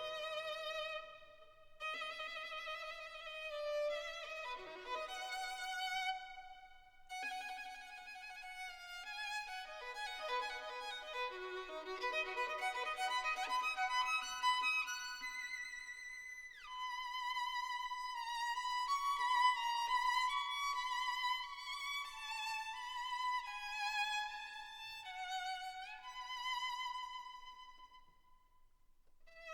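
Background classical music: a violin playing a lively melody with vibrato and quick runs of notes, and a long downward slide about sixteen seconds in.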